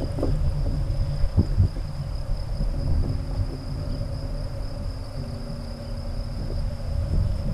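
Insects chirring steadily with a constant high-pitched buzz, over a low wind rumble on the microphone.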